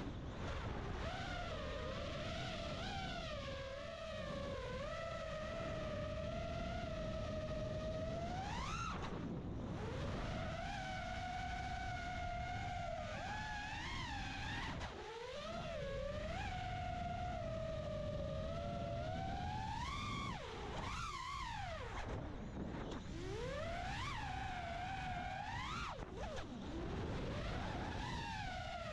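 Brushless motors and propellers of a 5-inch FPV freestyle quad (EMAX ECO II 2207 1900kv motors) whining. The pitch rises and falls constantly with throttle, sweeping sharply up on several punch-outs and dropping on brief throttle chops, with air rushing past underneath.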